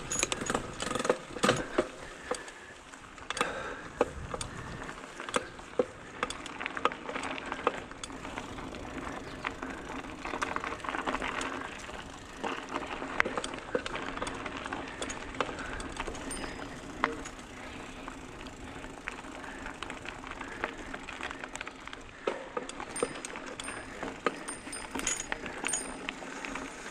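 Mountain bike rolling fast over a rough dirt and grass trail, with the frame and parts rattling and clicking sharply over bumps above a steady rustle of the tyres.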